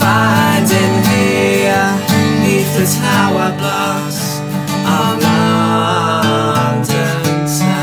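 Two acoustic guitars strummed together, with a man singing over them in an acoustic folk song.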